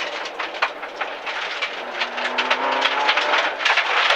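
Rally car running flat out on a gravel stage, heard from inside the cabin. Stones pelt the underbody in sharp clicks and rattles. The engine note eases off at first, then climbs steadily from about two seconds in as the car accelerates again.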